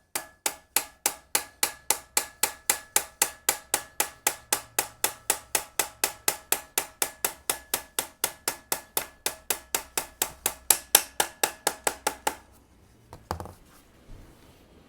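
A hammer tapping on metal in an even rhythm of about four strikes a second, each with a short ringing tone. The tapping stops about twelve seconds in, followed by a couple of lone knocks.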